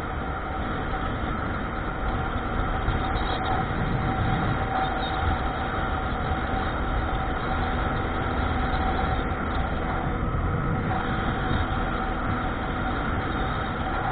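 Steady rumble of a moving vehicle's engine and running noise, with a steady tone held throughout.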